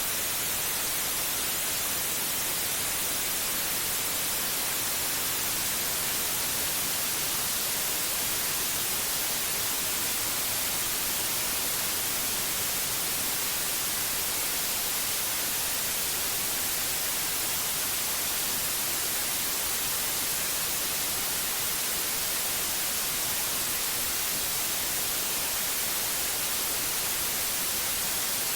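Steady white noise: an even, unchanging hiss, brightest in the high end.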